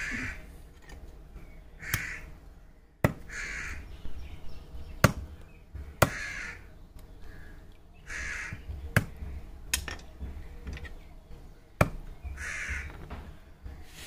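A knife blade knocking sharply against a wooden chopping block about six times at uneven intervals while quail are cut up on it. Between the knocks a bird calls over and over, roughly every two seconds.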